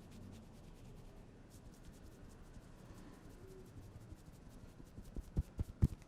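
A barber's hands rubbing over a customer's scalp and hair during a head massage. About five seconds in this gives way to a quick run of dull pats, several a second, growing louder.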